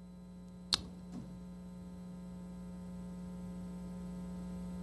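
Steady electrical mains hum, a low tone with fainter overtones, slowly growing a little louder. A single short, sharp click about three-quarters of a second in.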